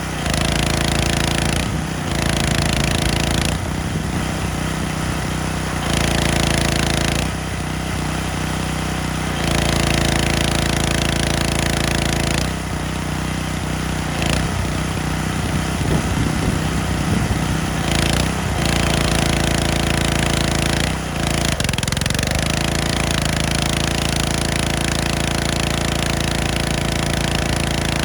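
Gas-engine pressure washer running, with a loud spray hiss that starts and stops every few seconds as the trigger is worked. The engine note shifts as the spray starts and stops.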